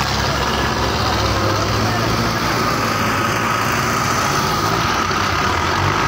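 Diesel engines of several Belarus tractors running steadily as the tractors push earth with their front blades.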